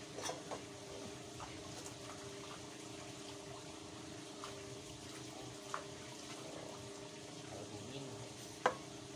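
Water sloshing and splashing as hands work in a bucket of water and at the water's edge, with a few sharp clicks, the loudest near the end. A steady faint hum runs underneath.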